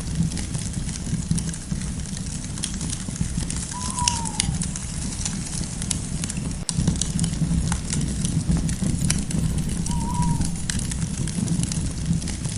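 Campfire crackling steadily, with frequent sharp pops over a low, even rumble of the burning wood. Twice, about four seconds in and again near ten seconds, a bird gives a short falling call.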